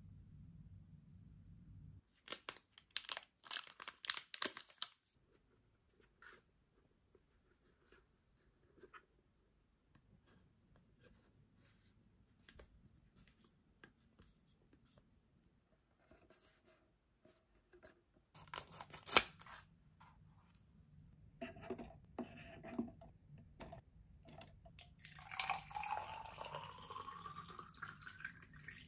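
Plastic containers and lids handled with scattered clicks and crinkles. Near the end, water is poured into a plastic measuring cylinder, its pitch rising as it fills.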